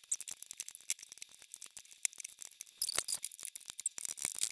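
Plastic rubber-band loom being handled and shifted, giving a dense run of small clicks and rattles that is busiest near the end.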